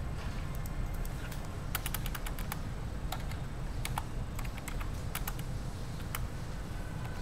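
Irregular light clicks and taps at a desk, a quick run of several about two seconds in and single ones after, over a low steady hum.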